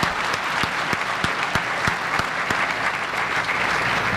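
Audience applauding, with one pair of hands close to the microphone clapping steadily at about three claps a second through the first half; the applause dies away near the end.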